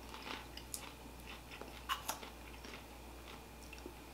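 People chewing drizzled kettle corn popcorn: faint, irregular crunches, with a couple of sharper crunches about two seconds in.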